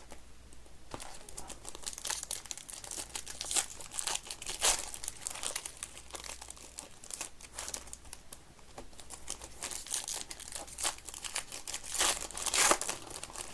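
Foil trading-card pack wrappers crinkling and tearing open, a steady run of quick crackles with a few louder rustles, the loudest near the end.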